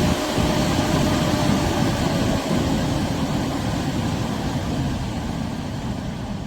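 A Wathai 12038 120 mm x 38 mm high-speed PC case fan running, a loud steady rush of air with a faint whine that sinks slightly in pitch and gets quieter near the end, as if the fan is slowing.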